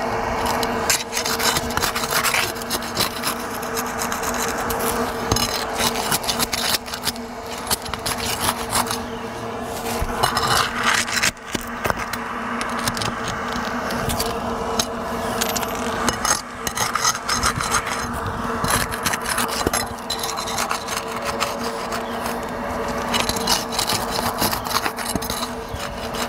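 Steel flat bar scraping and prying under asphalt roof shingles, a continuous rasping scrape broken by many sharp clicks as the shingles are loosened and checked for nails.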